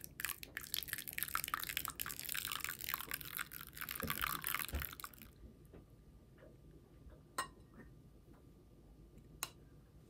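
Warm milk poured in a thin stream into beaten eggs in a glass bowl while a silicone whisk stirs, a dense splashing swish that stops about five seconds in. Then quieter whisking follows, with two light clinks.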